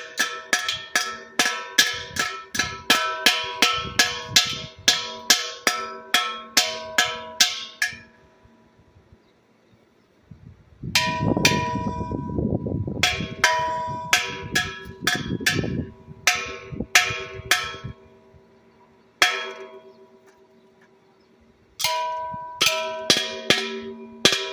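Hammer blows on the metal of an air compressor, each strike ringing with a clear bell-like tone: fast runs of about two to three blows a second, broken by pauses, as a part is knocked loose to get it off.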